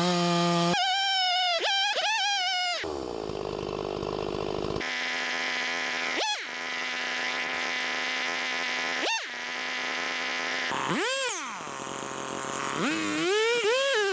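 Chainsaw cutting the felling notch in a tree trunk, running at high revs with its pitch dropping sharply and recovering a few times. The sound changes abruptly between stretches, as the footage is cut.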